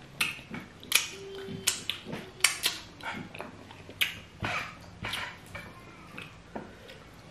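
Wet lip smacking and open-mouth chewing while eating fufu dipped in peanut soup: a run of sharp, irregular smacks, a few each second, some of them loud.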